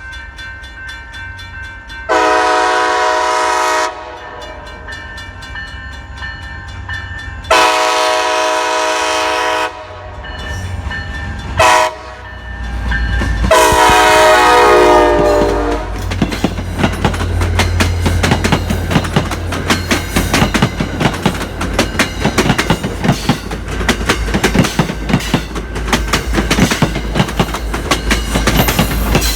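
A diesel locomotive's air horn sounds the grade-crossing signal, long, long, short, long, the last blast dropping slightly in pitch. Then the train passes close by, a low engine rumble under the clickety-clack of wheels over rail joints.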